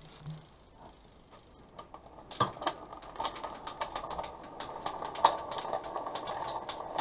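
Road bike drivetrain turned by hand in a workstand. After about two seconds of near silence the chain starts running over the rear sprockets and through the derailleur, with scattered clicks, as the gears are checked after the rear gear cable was retensioned.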